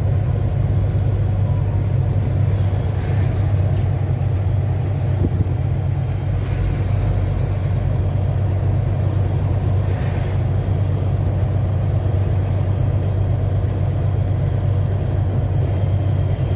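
Steady low drone of a Volvo NH 380 truck's diesel engine and road noise, heard from inside the cab while cruising.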